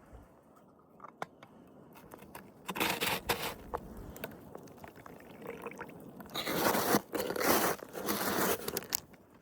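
Crunching and scraping of snow in two long bursts: one about three seconds in, and a longer, louder one from about six to nine seconds in.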